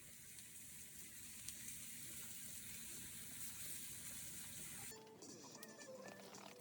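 A steady hiss with a few faint ticks, cut off about five seconds in by background music.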